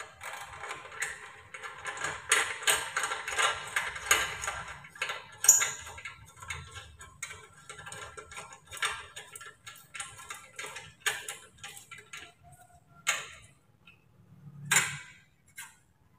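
Ratchet of a socket wrench clicking while a bolt is driven home, mixed with small metal clinks of an alloy heat guard against a scooter muffler. The clicks come thick for about the first five seconds, then more sparsely. A couple of sharper knocks come near the end.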